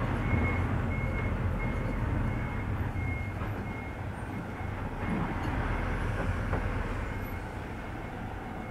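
Car driving slowly, heard from inside the cabin: a steady low engine rumble and road noise, louder in the first few seconds. A short high beep repeats a few times a second throughout.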